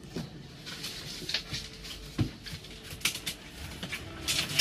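Crocodile biting down on and chewing a whole chick: scattered short crunches and jaw clacks, about half a dozen over a few seconds.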